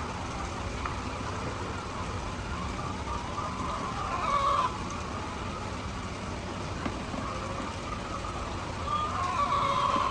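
Chickens calling twice, once about four seconds in and again near the end, each call lasting under a second, over a steady background hiss.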